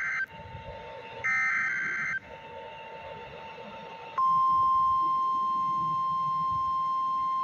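NOAA Weather Radio Emergency Alert System weekly test on a weather radio receiver. A SAME digital header burst ends just after the start, and another about a second long, with the typical buzzy warbling screech, comes about a second in. After a short stretch of hiss, the steady 1050 Hz warning alarm tone starts about four seconds in and holds.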